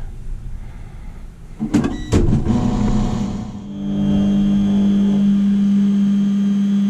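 MakerBot 3D printer starting a print: a few sharp clicks, then a steady electric-motor hum from its stepper motors driving the axes.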